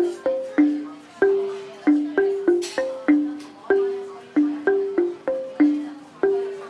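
Background music: a simple melody of single short struck notes on a mallet-percussion instrument, each note fading quickly, a few notes a second.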